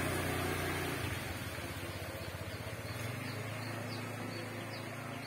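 An engine running steadily nearby: a low, even drone with a fast pulse.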